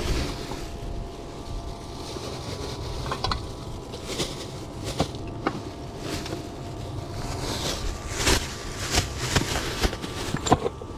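Plastic bags rustling and crinkling in irregular crackles as litter is handled and bagged, over a steady low rumble of wind on the microphone. The crackles come thicker in the second half.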